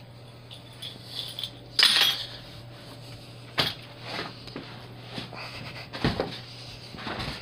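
A few scattered knocks and rustles from someone moving about a room, the loudest about two seconds in, over a low steady hum.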